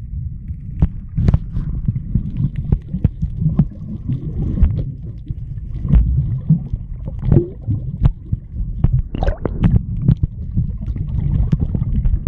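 Muffled underwater sound heard through an action camera's waterproof housing: a low churning rumble of moving water, broken by many sharp clicks and bubbling.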